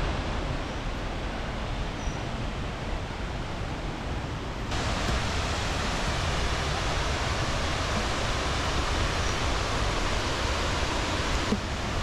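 Steady rush of flowing river water, turning louder and brighter about five seconds in.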